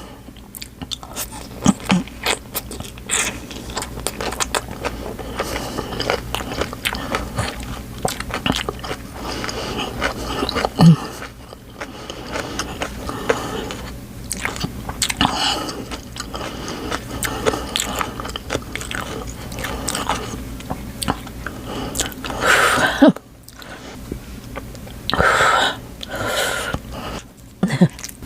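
Close-miked eating of a spicy noodle-and-rice meal: steady wet chewing and biting with many small mouth clicks. Near the end come a few louder, hissy bursts, each about a second long.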